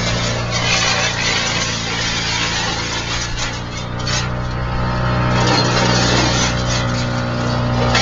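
Vermeer wood chipper running, its engine holding a steady hum under the rough noise of wood being fed in and chipped. The chipping noise thins out about halfway through and builds again soon after.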